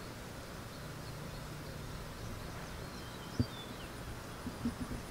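Outdoor background: a steady low hum with a few faint bird chirps, and a single sharp click about three and a half seconds in.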